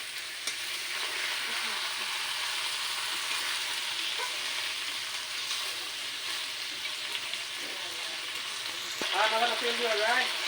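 Desi chicken and ground spices sizzling in a hot pan as they are stirred and sautéed down in oil. There is a steady frying hiss, and a voice is heard briefly near the end.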